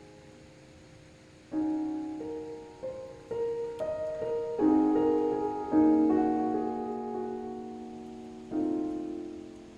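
Background music: slow, gentle chords, each struck and left to fade, after a quiet first second and a half.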